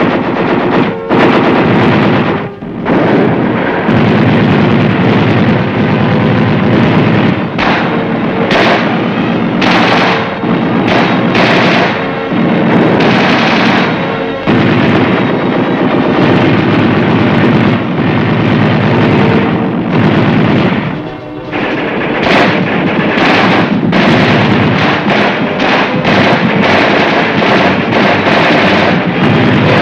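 Many infantry weapons firing at once in a mass live-fire demonstration: a loud, continuous crackle of overlapping shots. The firing briefly thins about two and a half seconds in and again about two-thirds of the way through.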